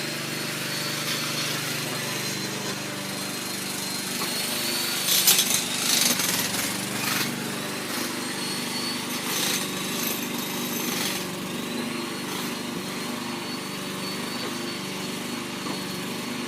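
Machinery from track works: an engine running steadily, with two spells of harsher power-tool noise about five and ten seconds in.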